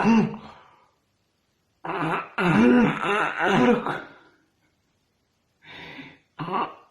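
A woman making a voiced trilling 'brrr' with her lips and tongue, its pitch rising and falling over a couple of seconds, then two short, fainter puffs near the end. This is a tongue exercise against snoring, meant to tone the base of the tongue.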